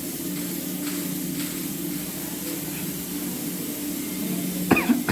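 Steady hiss of compressed air at work, as in spray painting or sandblasting a fridge body, over a steady low machine hum. A short high-pitched gliding sound comes near the end.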